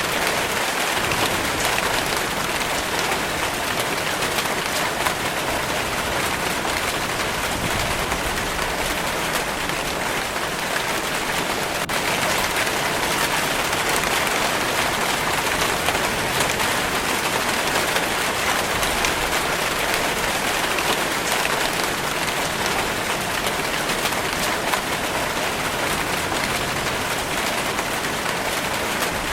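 Steady rainfall, an even hiss of drops on a surface that holds level throughout.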